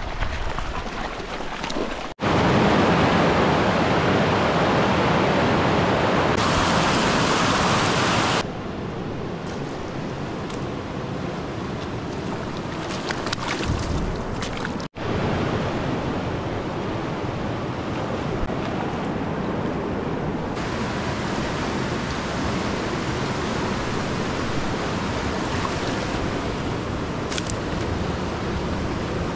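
Rushing mountain river water, a steady loud wash of noise. It drops out abruptly twice, about two seconds in and about halfway, and comes back at a different loudness each time.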